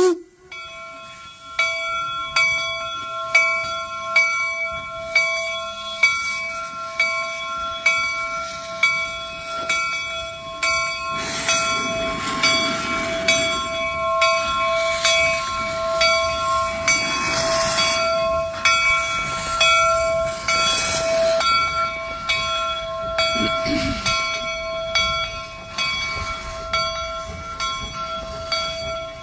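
The bell of the replica Central Pacific No. 60 Jupiter, a 4-4-0 steam locomotive, rings in a steady rhythm of about three strikes every two seconds as the engine pulls away. Bursts of steam hiss join in a few times around the middle.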